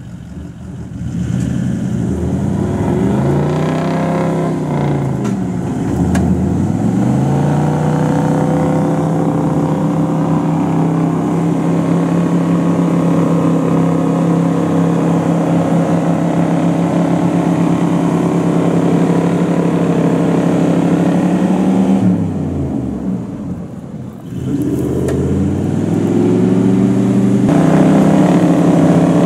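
A 4x4's engine revving hard and held at high revs, with its pitch dropping and climbing back twice, as it labours through heavy sand.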